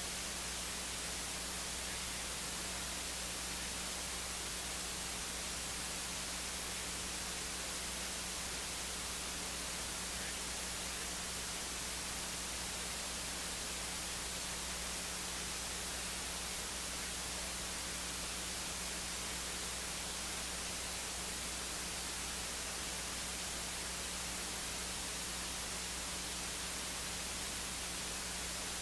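Steady electronic hiss with a low steady hum underneath, unchanging throughout; no other sound stands out.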